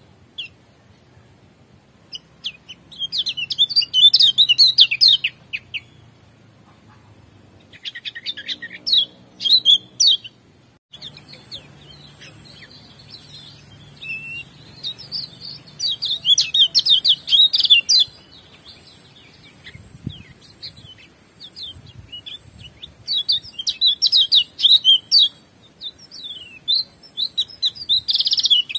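Kecial kuning (Lombok white-eye) singing in bursts of rapid, high twittering song, several phrases a few seconds long with pauses between them. A faint steady high whine runs under it.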